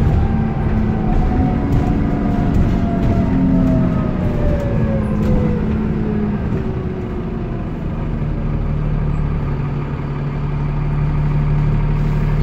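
A Transbus Trident 2 double-decker bus's engine and drivetrain heard from inside the upper deck. Their whine falls in pitch over about the first half as the bus slows. A steadier low engine note holds from about two-thirds in.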